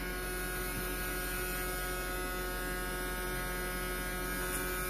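Homemade electronic generator circuit running under load, giving a steady electrical hum with several steady whining tones over it.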